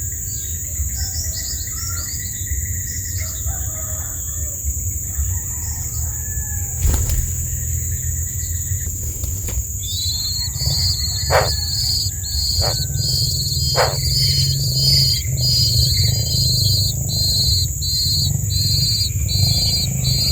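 Birds chirping. About halfway in, a regular series of short high chirps starts, roughly one a second, with a few quick downward-sliding calls, over a steady high-pitched whine and a low rumble.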